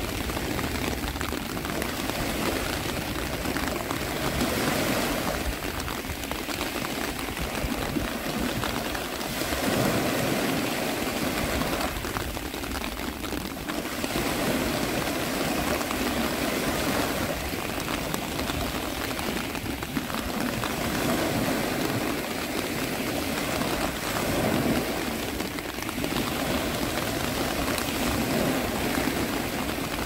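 Sea surf and rain together as a steady rushing water noise that swells and eases every few seconds.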